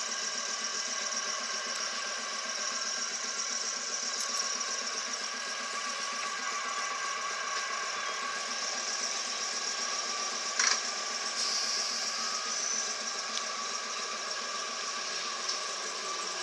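Class 315 electric multiple unit standing at the platform, its onboard electrical equipment giving a steady hum with several high whining tones over it. A brief click about two-thirds of the way through.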